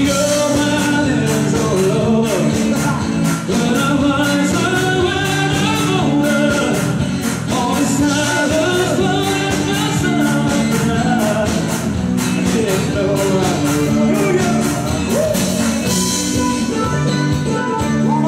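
Live amplified music: a male voice singing into a handheld microphone over a steady, driving beat.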